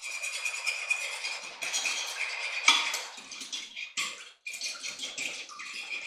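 Fork whisking eggs and milk in a glass baking dish: a fast run of metal-on-glass scraping and clinking, broken by a brief pause about two-thirds through.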